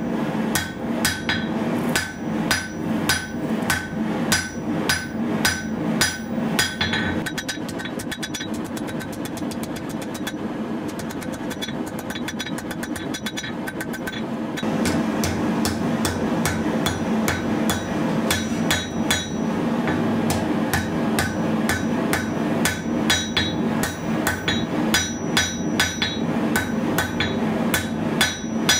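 Hand hammer striking a red-hot bar of 1095 high-carbon steel on an anvil, forging a knife blank: ringing blows at about two or three a second. About a quarter of the way in the blows come quicker and lighter, thin out for a few seconds, then the steady blows resume about halfway through.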